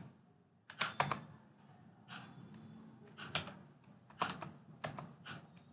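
Computer keyboard keys tapped one at a time as a number is typed: about a dozen separate clicks, some in quick pairs, with short pauses between them.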